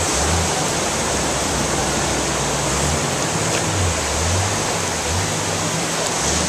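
Fast-moving floodwater rushing in a steady, loud roar, with a low hum underneath.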